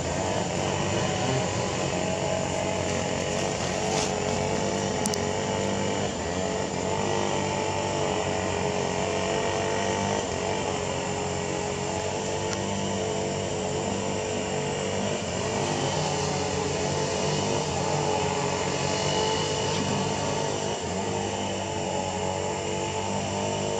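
Steady motor drone, like an engine running without change in pitch, with a couple of faint clicks about four and five seconds in.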